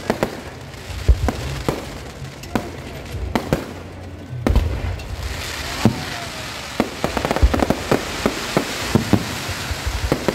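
Fireworks display: aerial shells bursting in a string of sharp bangs. A low rumble comes about halfway through, then a thicker noisy wash, and the bangs come much faster in the last few seconds.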